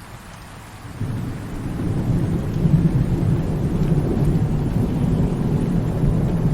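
Thunder rumbling over falling rain: a deep rolling rumble swells in about a second in and keeps going, over a steady hiss of rain.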